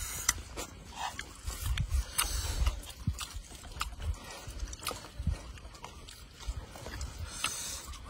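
Eating sounds: fingers picking at a whole grilled fish and mouths chewing, with scattered short clicks and smacks.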